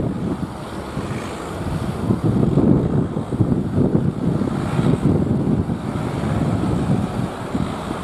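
Wind buffeting the microphone in uneven gusts, over the steady wash of breaking surf.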